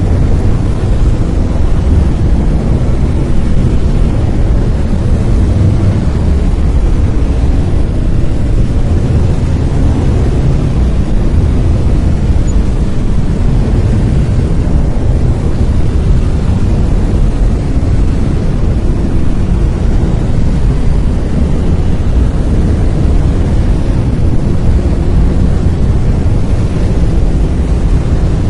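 Brown noise: a steady, deep rumbling hiss with most of its energy in the bass and little treble, unchanging throughout.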